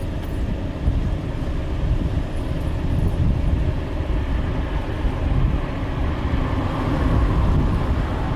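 Strong gusty wind buffeting the microphone: a steady low rumble that keeps flickering in loudness, growing a little stronger toward the end.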